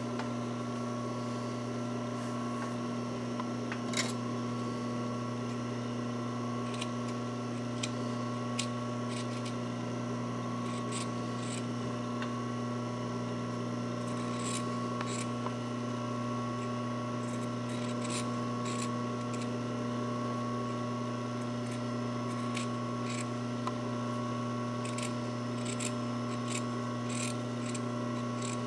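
Scissors snipping through fabric in short, irregular cuts, trimming a doll dress's seam allowances; the snips come more often in the second half, over a steady low hum.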